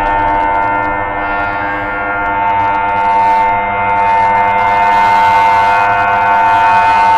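Sustained electronic drone: a dense chord of steady, held tones with a hiss that swells in and out. It grows a little louder in the second half.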